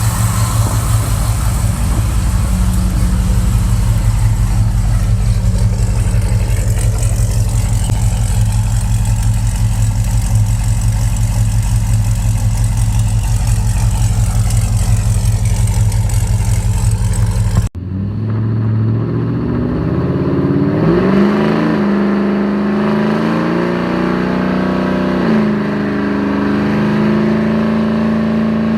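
Holden VX SS Commodore's LS1 V8 running at a steady idle. After an abrupt cut about two-thirds of the way through, the engine revs up and down repeatedly.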